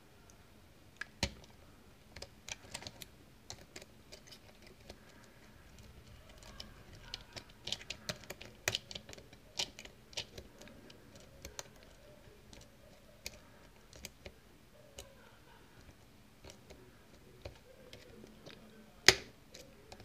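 Lock pick and tension wrench working the pin stack of a cheap five-pin Stabilit euro cylinder: irregular small metallic clicks and ticks as the pins are lifted, with one sharp, much louder click near the end. The clicks come from raking and setting spool pins, with pin two giving counter-rotation.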